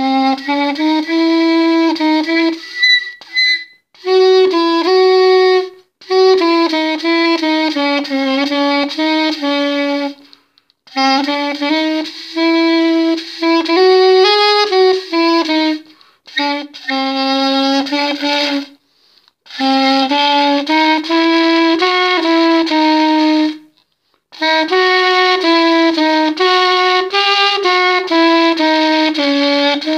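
A 3D-printed reed instrument, a recorder-style body with a B-flat clarinet mouthpiece, reed and ligature, being played: a tune of stepping and held notes within a narrow middle range, in phrases broken by several short pauses.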